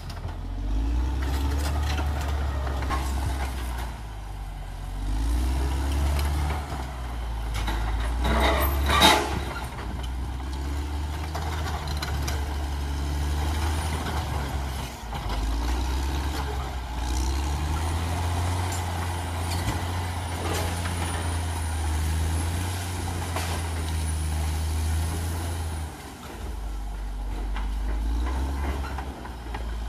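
Caterpillar D6R XL bulldozer's diesel engine running under changing load, rising and falling every few seconds as it works. There is a loud burst of noise about nine seconds in.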